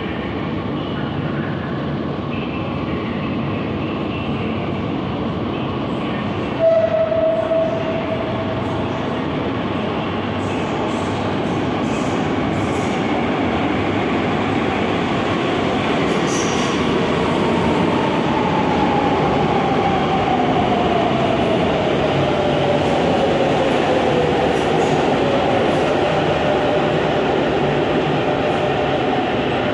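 Madrid Metro train running in from the tunnel and braking to a stop at the platform, with a steady rumble that grows louder. A short horn blast sounds about a quarter of the way in, and later a whine falls steadily in pitch as the train slows.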